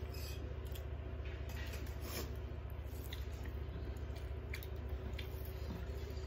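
Hand-eating sounds: fingers mixing rice and curry on metal plates, and chewing, with a few soft scattered clicks, over a steady low hum.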